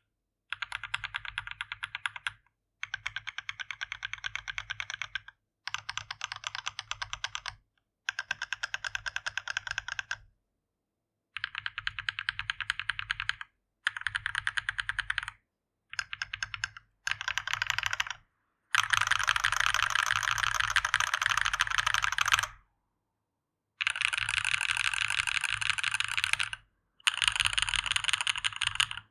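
Custom mechanical keyboard with a brass plate, Gateron x Siliworks Type R switches and GMK MTNU keycaps, typed on fast in runs of a few seconds with short pauses between them. The run a little past the middle is the loudest and longest.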